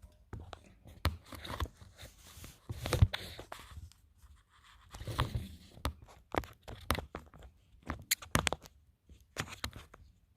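Hand tools working on a motorcycle's metal shift linkage: irregular clicks, knocks and short scrapes, with a couple of longer scraping stretches.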